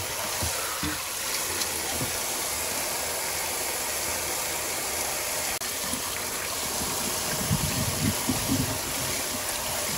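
Tap water runs steadily into a stainless steel bowl and colander while hands rinse a bunch of garlic chives, swishing and splashing them in the water. The flow cuts out for an instant about halfway through, and the splashing grows stronger near the end.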